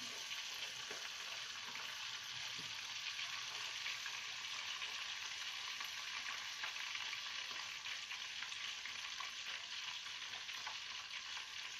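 Tilapia fillets frying in hot oil: a steady, even sizzle with dense crackling throughout.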